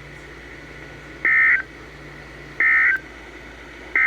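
Three short two-tone data bursts, a little over a second apart, from a NOAA Weather Radio broadcast: the SAME end-of-message code closing a severe thunderstorm warning. The third burst falls at the very end. Between the bursts there is only a faint radio hum and hiss.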